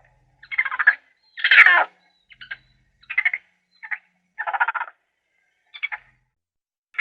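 A duck quacking repeatedly, about seven short raspy quacks at uneven intervals.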